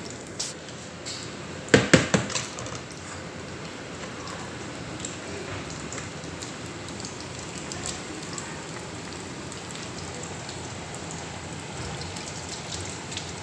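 French fries coated in egg and cornstarch deep-frying in a pan of hot oil: a steady sizzle and bubbling. A quick cluster of sharp knocks comes about two seconds in.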